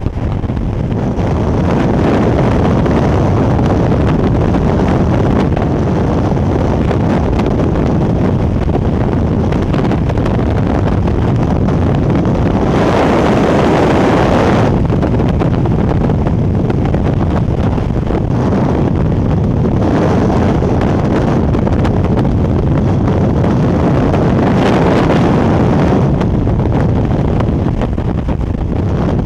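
Freefall wind rushing over a skydiving camera's microphone, a steady loud rush that grows stronger for a couple of seconds about halfway through.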